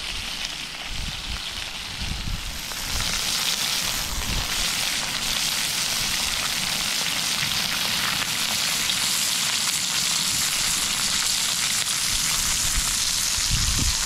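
Steak, black pudding and mushrooms frying in lard in a pan, a steady sizzle that grows louder about three seconds in.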